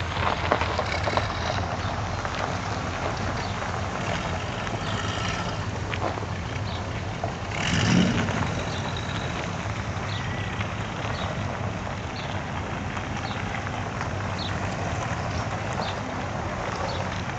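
Car engines running as Holden cars idle and pull away over a gravel car park. There is a louder swell about eight seconds in as one drives off close by.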